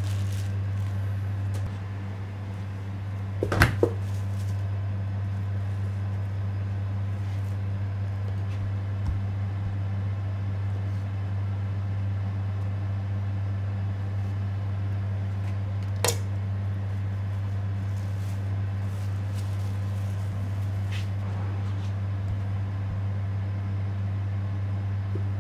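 Steady low machine hum, with sharp knocks of a knife on a wooden cutting board: two close together about three and a half seconds in, and one more about sixteen seconds in, as a block of tamagoyaki is sliced.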